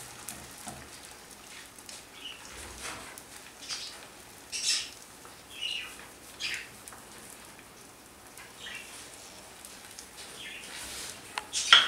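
Egg-coated bread frying in hot oil in a frying pan: a low sizzle broken by scattered short, sharp pops and spatters, the loudest about four to five seconds in and near the end.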